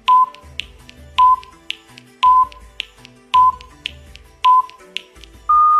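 Countdown timer sound effect: five short beeps about a second apart with a tick between each, then a longer, slightly higher beep marking the start, over low musical tones.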